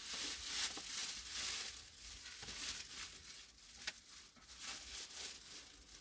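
Plastic wrapping and paper packaging rustling and crinkling as they are handled, louder in the first couple of seconds and fading toward the end.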